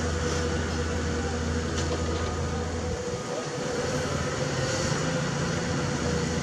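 CAT 320D L long-reach excavator's diesel engine and hydraulics running as the long boom lifts the bucket out of the canal and raises it, with a steady whine over the engine note. The low engine hum drops away about three seconds in.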